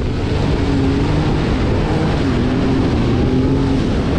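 Jet ski engine running under way, its note dipping about two seconds in and rising again, over a steady rushing noise.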